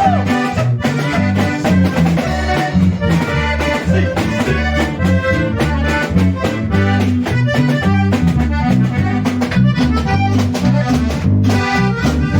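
Norteño band playing an instrumental break between sung verses: accordion melody over a walking bass line and drums with a steady beat.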